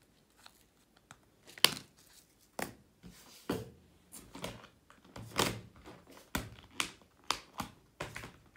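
Small plastic diamond-painting drill containers and drills being handled and put away: a series of irregular sharp clicks and knocks, with a longer rustle about halfway through.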